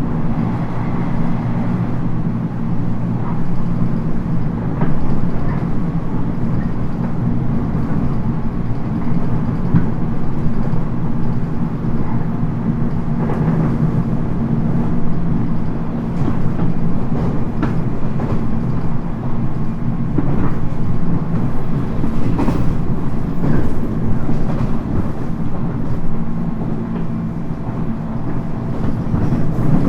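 Cabin running sound of a 719 series electric multiple unit at speed: a steady low rumble with rail-joint clicks and scattered knocks and rattles, a cluster of them a little after two thirds of the way through, from track in poor condition.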